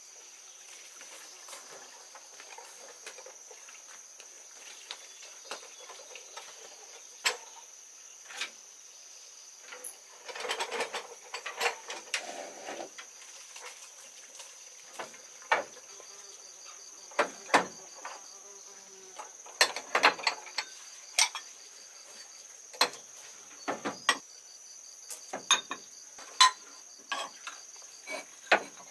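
A steady high insect drone running throughout, with irregular sharp knocks and taps of hand work, bunched around ten seconds in and coming thick from about seventeen seconds on.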